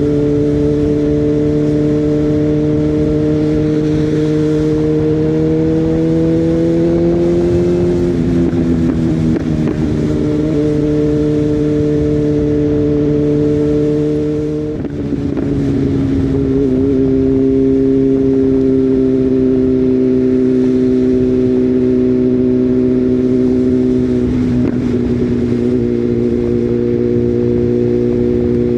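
BMW M1000R's inline-four running through a decat Akrapovic system and a Chinese copy SC Project S1 end can fitted with a Leiker baffle, at steady riding speed. The note climbs slowly, then drops about 8 and 15 seconds in, with a brief lift off the throttle at the second drop, and settles lower again about 25 seconds in, as on gear changes.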